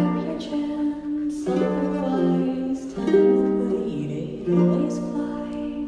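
A plucked string instrument playing slow chords, a new chord struck about every second and a half.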